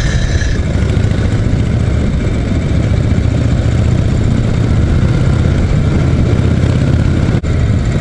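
Harley-Davidson Shovelhead V-twin engine running steadily as the motorcycle is ridden along the road, a deep, even rumble. The sound breaks off for an instant about seven seconds in.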